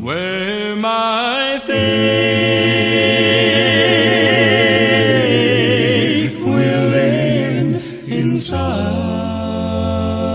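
Gospel quartet singing a cappella in close harmony: voices slide up into a chord, hold long notes with vibrato over a low bass line, and break briefly about six and eight seconds in before the next held chord.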